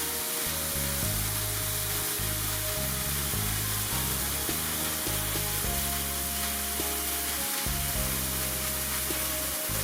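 Birthday cake sparkler candle burning with a steady hiss of spraying sparks, over background music with a bass line.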